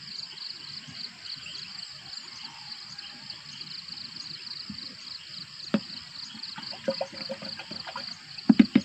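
A steady chorus of chirping insects pulsing evenly, with a few knocks and clatters from a plastic pesticide bottle and knapsack sprayer tank being handled; the loudest cluster of knocks comes near the end.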